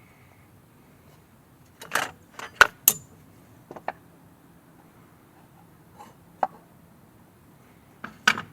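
Hard tools being handled on a workbench: a quick run of sharp clinks and knocks about two seconds in, then a few single taps spread out after it.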